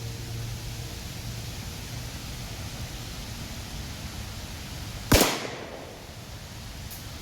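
A single Glock 19 9 mm pistol shot about five seconds in, sharp and loud with a short echoing tail, over steady outdoor background noise.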